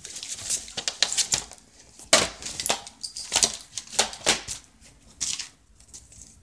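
Hands rummaging through a bag: a quick, irregular run of rustles and small clicks and knocks as objects are pushed about, the sharpest knock about two seconds in.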